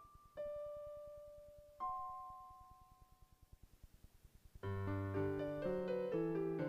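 Solo piano playing a slow, calm piece: a few sparse notes that ring and fade away, a pause of about two seconds, then a fuller passage with a low bass note comes in about four and a half seconds in.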